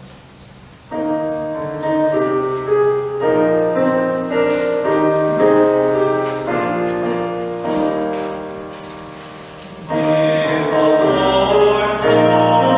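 Church keyboard playing a slow introduction of sustained chords, starting about a second in, followed near the end by a voice beginning to sing: the opening of the sung responsorial psalm after the first reading.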